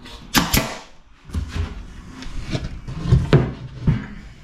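Plywood drawer parts knocking and clacking as drawers are assembled: two quick sharp cracks just under half a second in, then a run of irregular wooden knocks and thuds.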